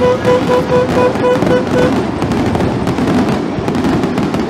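Fireworks crackling in a dense, continuous string of pops. A repeated beeping tone sounds over it for the first two seconds.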